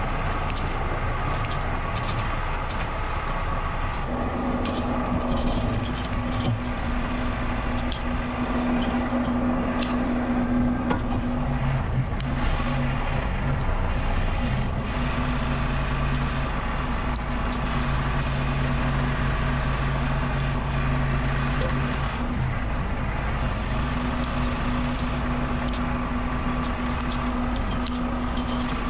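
Heavy diesel engine running steadily. A pitched hum sets in about four seconds in and comes and goes, with a lower tone joining it for a stretch in the middle. Scattered light clicks and knocks run underneath.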